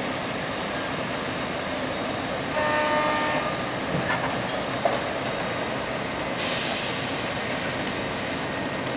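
Steady mechanical noise, with a horn sounding briefly for under a second about two and a half seconds in.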